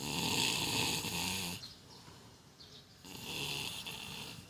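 A person snoring: two long snores about three seconds apart, each a buzzing rattle with a hissy breath over it.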